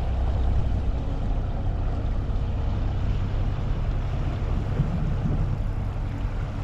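Small ferry boat's engine running steadily as the boat moves away from the breakwater, a continuous low rumble.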